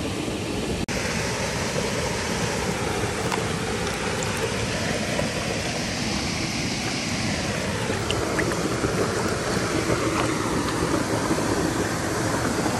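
Shallow mountain stream running over rocks: a steady rush of flowing water that drops out for an instant about a second in.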